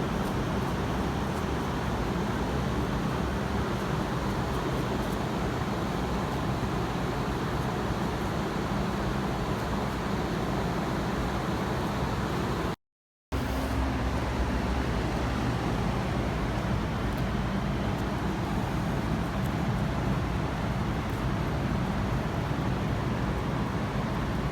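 Steady rushing background noise with a low hum under it, broken once by a half-second dropout to silence about 13 seconds in.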